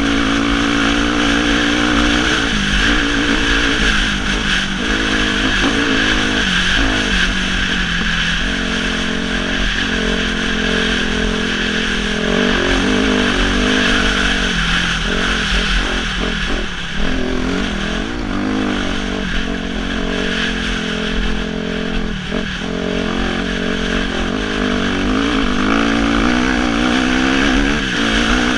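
2006 Suzuki RM-Z250 dirt bike's single-cylinder four-stroke engine running hard under load, its pitch rising and falling with the throttle, with brief dips as the revs drop twice in the second half.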